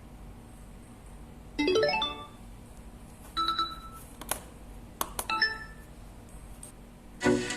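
Music played through a Mifa K3 soundbar: a sparse intro of a few short phrases of pitched notes with pauses between them, then the full track comes in loudly near the end.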